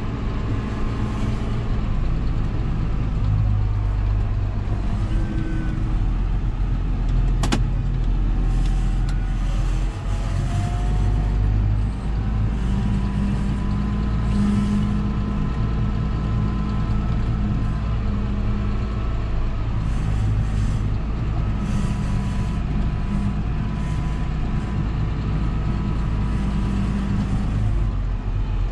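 John Deere 6930 tractor's six-cylinder diesel engine running steadily at a constant speed. There is a single sharp click about seven seconds in.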